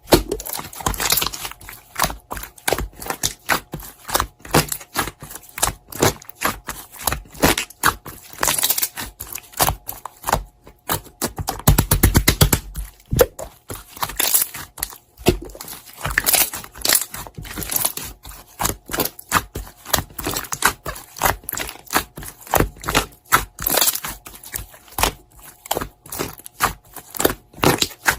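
Slime being squished and poked by hand: a dense, irregular run of sticky clicks and crackles, with a fuller, deeper squelch about twelve seconds in.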